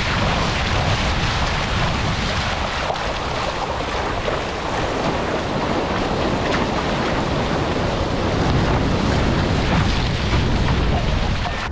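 Steady rush of whitewater and spray around a sea kayak's bow as it surfs a breaking wave, heard close up at the bow with a low rumble on the microphone.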